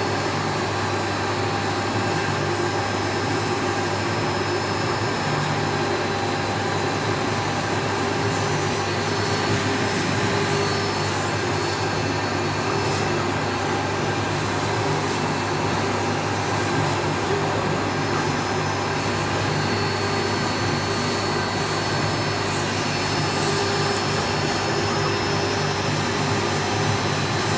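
CNC router spindle running steadily with its end mill cutting lettering into white foam board: a steady whine over the even noise of the cut.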